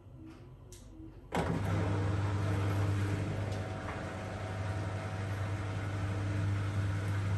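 Grundig FIBERCatcher front-loading washing machine: a soft, repeating motor whine, then about a second in the drain pump cuts in abruptly with a loud, steady hum and rushing water as the drum drains ahead of the intermediate spin.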